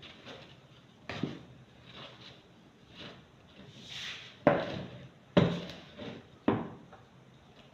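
Spatula stirring thick cake batter in a plastic bowl and knocking against the bowl: soft knocks and scrapes at first, then three sharp knocks about a second apart in the second half.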